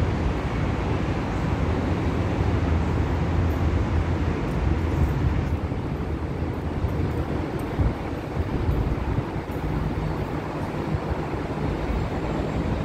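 Steady low rumble of distant city traffic, a little weaker after about five seconds.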